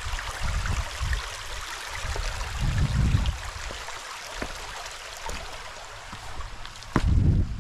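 Shallow rocky creek trickling and burbling over stones in a steady wash of water noise, with a sharp knock about seven seconds in.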